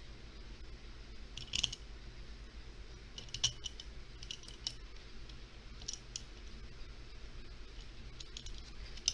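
Small screws clicking against the metal of an outboard carburetor as they are picked up and started by hand into the float bowl: a handful of faint, sharp clicks a second or two apart.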